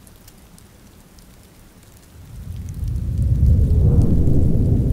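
Soft steady rain with scattered drips. About two seconds in, a deep roll of thunder swells up, is loudest near the end, and begins to fade.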